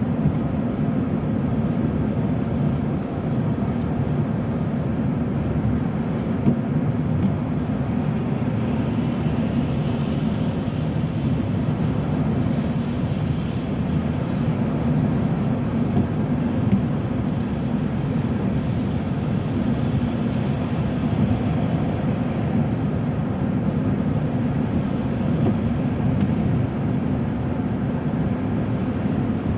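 Steady road and engine noise of a car being driven, heard from inside the cabin: an even low rumble that holds level throughout.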